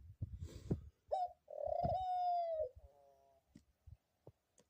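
A pet dove cooing: a short note about a second in, then one long, steady coo. Soft low thumps and rustling come before it at the start.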